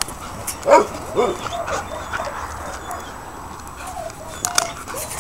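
Husky giving two short, whining yips about a second in, with a few fainter calls and scattered small clicks after.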